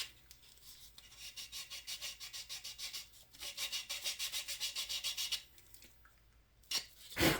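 Sandpaper rubbing dried body putty on a plastic scale-model car body in quick back-and-forth strokes, about five a second, smoothing over filled sink marks. The sanding stops about two thirds of the way through, followed by two short knocks, the louder one near the end.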